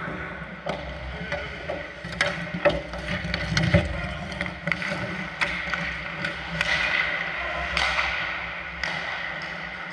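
Ice hockey play: skate blades scraping the ice, with several sharp clacks of sticks and puck, the loudest about three to four seconds in.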